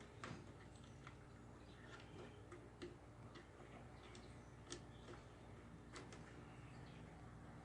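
Faint, irregular small clicks and ticks of hands working wiring inside a locomotive body, over a low steady hum.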